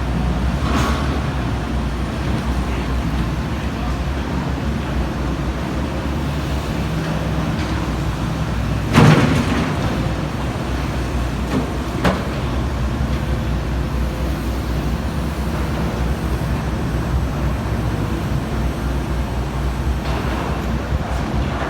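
Komatsu PC350-7 hydraulic excavator's diesel engine running steadily, with a loud bang about nine seconds in and a smaller, sharp knock about three seconds later.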